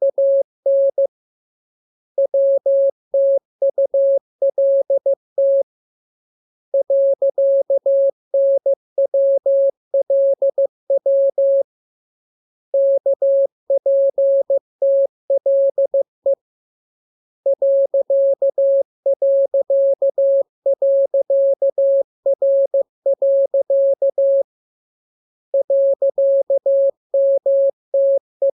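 Morse code (CW) sent as a single steady tone keyed on and off in quick dots and dashes, grouped into words with pauses of about a second between them: practice text built from the letters K, M, U, R, E, S, N, A, P, T, L, W and I.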